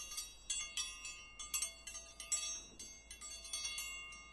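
Metal wind chimes tinkling: irregular, overlapping strikes, a few a second, each ringing on.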